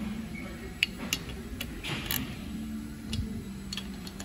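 A few separate clicks from a socket torque wrench as the rocker cover bolts on a Kawasaki FS481V V-twin are tightened to 61 inch-pounds, over a steady low hum.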